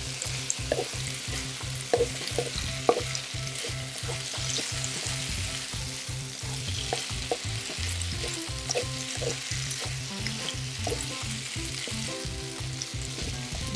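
Wide rice noodles sizzling in oil as they are stir-fried in a nonstick wok, with the spatula scraping and tapping against the pan now and then. A low, rapid pulsing runs underneath.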